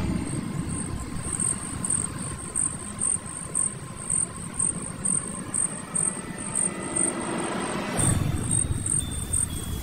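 Insects chirping in an even, steady rhythm over a low rumble; a rising whine builds from about six seconds in, and the rumble swells near the end.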